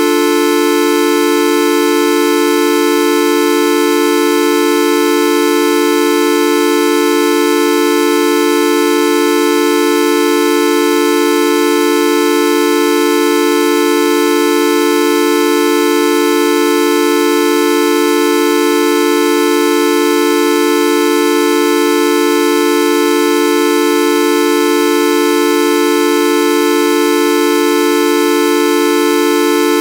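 A loud, unbroken electronic drone sound effect, a buzzy horn-like tone rich in overtones, held at one pitch without any change.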